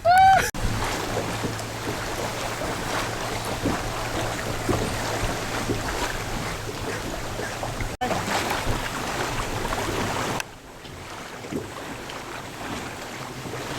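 Wind buffeting a camcorder's built-in microphone outdoors by a lake, a steady rough rushing with a low hum under it. It opens with a short, loud, rising cry. The sound breaks off abruptly about 8 seconds in and drops quieter at about 10 seconds.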